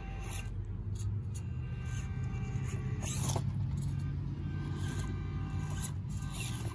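Electric motor and geared drivetrain of an FMS Atlas 6x6 RC rock crawler whirring as it crawls down off a boulder, rising through the middle as it is driven on, with short clicks and scrapes of its tyres and chassis on the rocks.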